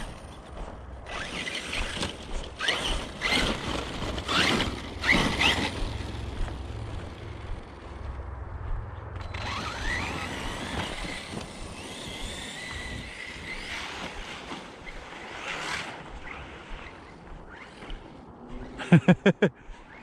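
Arrma Notorious 6S RC car with a Spektrum 1250kv brushless motor driving in throttle bursts, the motor whine rising and falling over and over. A quick run of loud thumps comes near the end.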